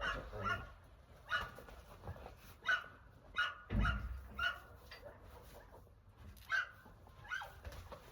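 Short animal calls, about a dozen in an uneven series, with a heavier low thump about four seconds in.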